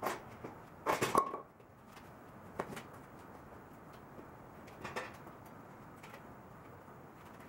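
A few separate knocks and clanks of metal being handled on a steel workbench, the loudest about a second in with a short metallic ring, and lighter knocks at about two and a half and five seconds in.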